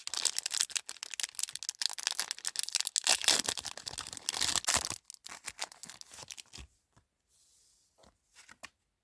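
A Yu-Gi-Oh booster pack's foil wrapper being torn open and crinkled for about five seconds, thinning to a few faint ticks of card handling near the end.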